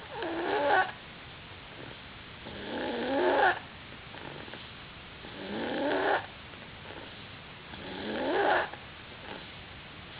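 A sleeping pet snoring: four long snores, one about every two and a half seconds, each growing louder and then stopping short.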